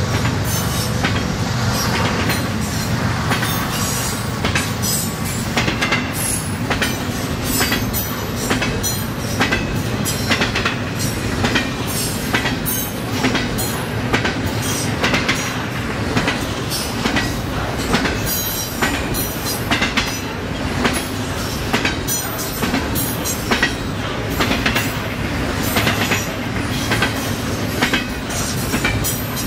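Railroad cars rolling steadily past, their wheels clacking irregularly over rail joints several times a second, with a steady rumble beneath.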